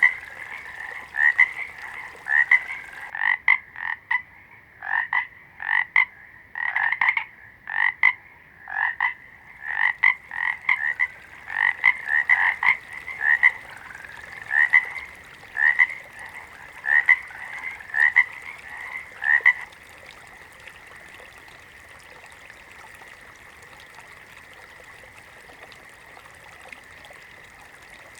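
Frogs croaking in short repeated calls, a little over one a second, which stop about two-thirds of the way through. A faint steady high hum runs underneath the calls and carries on after them.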